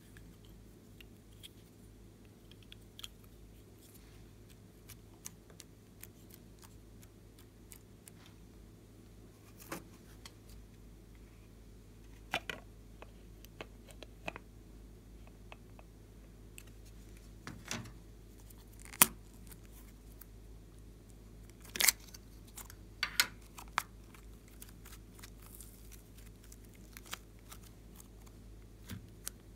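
Hands handling small plastic containers and toys: scattered soft clicks and taps, with a few sharper plastic clacks about 19 and 22–23 seconds in, over a low steady hum.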